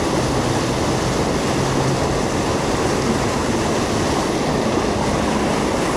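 Steady rush of stream water pouring over a small waterfall.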